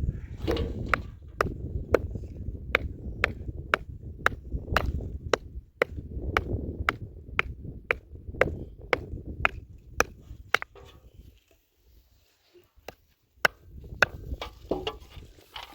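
Knife chopping on a cutting board, sharp even strokes about two a second. It pauses about 11 seconds in, then three more strokes follow.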